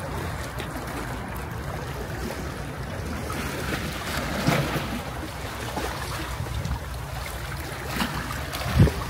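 Sea waves washing ashore under a steady low rumble of wind on the microphone. A brief louder sound comes about halfway through, and a stronger one near the end.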